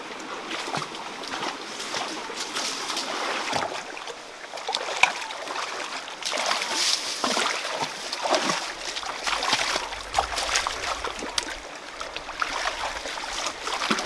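Water splashing irregularly, with many short sharp splashes over a steady rush of moving water.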